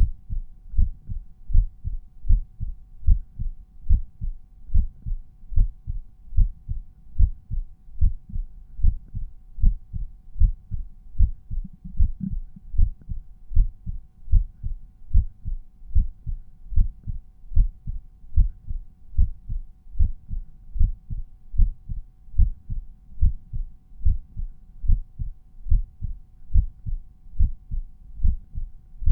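A resting human heartbeat heard by auscultation at the mitral point (the cardiac apex): regular low lub-dub pairs, about one beat a second. A faint steady hum runs underneath.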